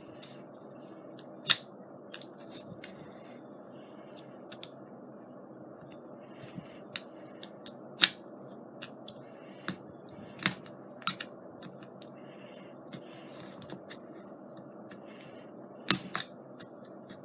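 A knife prying and cutting at the plastic shaker lid of a new glitter bottle: scattered sharp plastic clicks and snaps, the loudest about 1.5, 8, 10.5 and 16 seconds in, with scratchy scraping between them. A steady low hum lies underneath.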